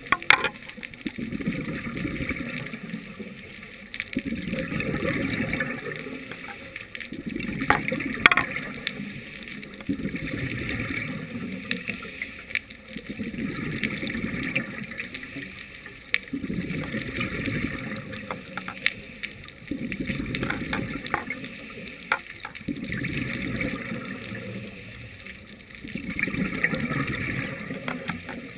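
Scuba diver breathing through a regulator underwater, heard through the camera housing: regular breaths with bubbling exhalations, swelling and fading about every four seconds. A few sharp clicks come at the very start and again about eight seconds in.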